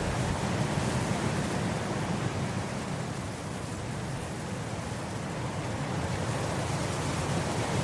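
Wind blowing steadily across grass, a rushing noise that eases slightly partway through and swells again near the end, with low rumble on the microphone.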